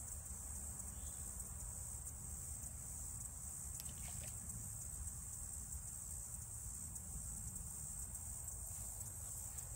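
Steady high-pitched chorus of insects such as crickets, with a low outdoor rumble beneath it and a couple of faint clicks about four seconds in.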